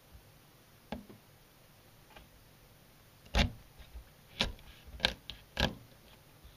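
A kitchen knife forced through the head of an oomehata (shiromutsu) fish to split it, the bone giving way in four sharp cracks in the second half, after a faint click about a second in.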